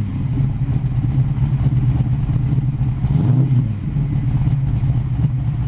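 1965 Ford Mustang's 347 stroker small-block V8 idling through Hooker long-tube headers and a 2.5-inch Magnaflow exhaust with X-pipe. About three seconds in, a short throttle blip raises the engine note and lets it fall back to idle.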